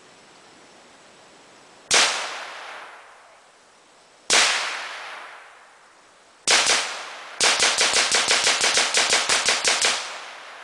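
Semi-automatic gunfire: two single shots about two and a half seconds apart, then a quick pair, then a rapid string of about sixteen shots over two and a half seconds. Each shot trails off in an echo.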